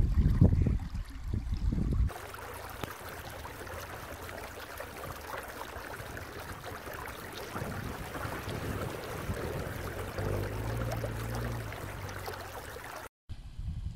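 Wind rumbling on the microphone for the first two seconds, then a small stream trickling over stones. From about eight seconds in, a Subaru Outback's engine comes closer, louder near the end, until the sound cuts off abruptly.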